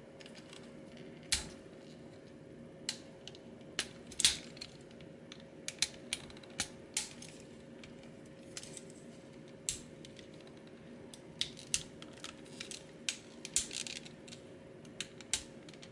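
Plastic parts of a Transformers Astrotrain toy figure clicking and tapping irregularly as they are pressed and plugged into place by hand, which takes some force, over a faint steady hum.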